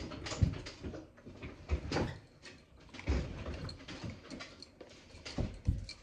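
Scattered knocks and clicks from handling a plastic dye bottle and plastic tub, with sharper taps about half a second in, at two seconds, and twice near the end.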